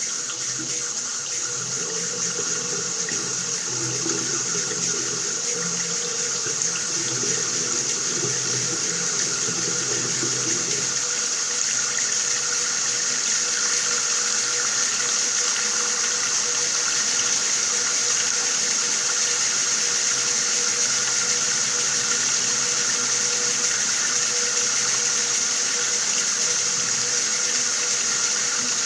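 Water running steadily from a tap. A lower, uneven layer underneath stops about eleven seconds in.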